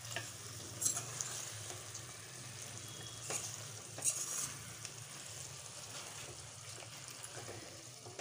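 A spoon stirs fresh cream into chicken pieces in a thick gravy in a nonstick pot, with faint sizzling underneath. The spoon scrapes against the pan a few times.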